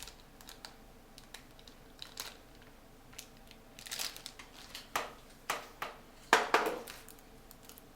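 Plastic packaging crinkling and small items clicking as graphics card accessories are handled, in scattered short bursts with the loudest about six and a half seconds in.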